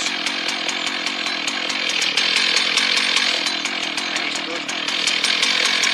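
Rebuilt Husqvarna 1100 two-stroke chainsaw running steadily, a little louder from about two seconds in.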